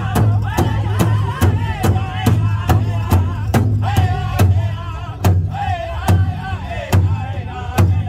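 Powwow drum group: a large hand drum struck in unison in a steady beat, a little over two strikes a second, with the singers' high, wavering voices over it.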